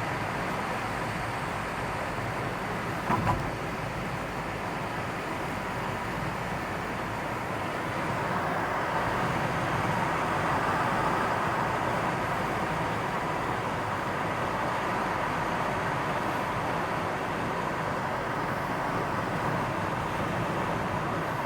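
Steady road traffic noise, swelling a little past the middle, with a brief double knock about three seconds in.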